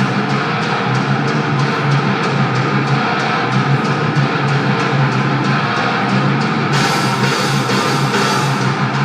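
Loud rock music with a driving drum beat and guitar, growing fuller and brighter about seven seconds in.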